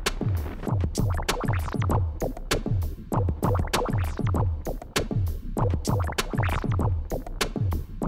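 Electronic background music with a fast drum-machine beat: deep bass-drum hits that drop in pitch, several a second, with sharp clap or hi-hat hits between them.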